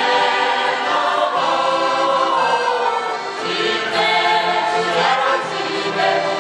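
A mixed choir of older men's and women's voices singing a song together, accompanied by accordion and acoustic guitar.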